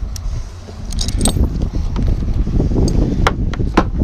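Sharp metallic clicks and jingling as the pilot's harness and its fittings are handled in the open cockpit, with a steady low rumble underneath.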